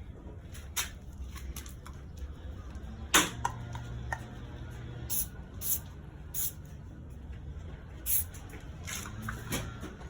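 Aerosol can of headlight coating spraying in short hissing bursts, about a dozen, with the loudest about three seconds in.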